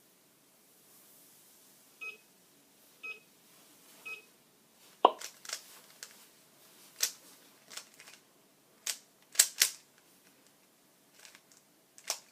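Three short electronic beeps about a second apart, a countdown at the end of the inspection time, then irregular sharp plastic clacks of a 3x3 Rubik's Cube being turned fast in a speed solve.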